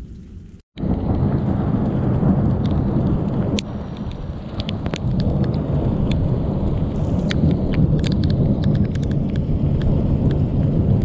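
Desert thunderstorm: steady rain with low thunder rumbling, scattered with sharp ticks of raindrops striking close to the microphone. It cuts in abruptly, loud, less than a second in.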